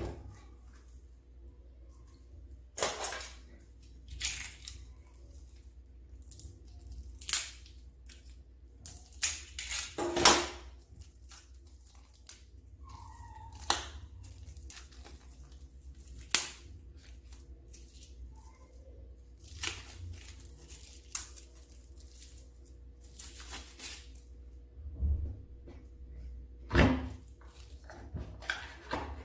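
Decks of playing cards and their cardboard game box being handled on a table: scattered taps, knocks and short rustles, about a dozen over the half minute. A faint steady hum runs underneath.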